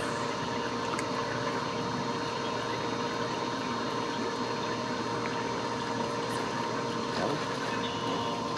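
A small electric motor on the boat runs with a steady hum, over a wash of water noise.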